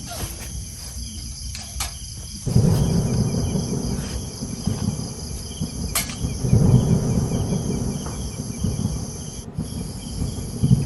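Chorus of crickets and other insects droning steadily in several high tones, over an uneven low rumbling noise, with a few sharp clicks.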